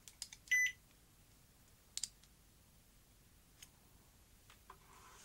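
Digital multimeter giving one short, high beep about half a second in, set for a continuity check on the video heads, followed by a few faint clicks.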